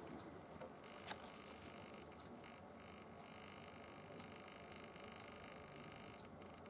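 Near silence: faint steady room hiss, with a few soft clicks about a second in as a thin plastic magnetic viewing film sheet is picked up by hand.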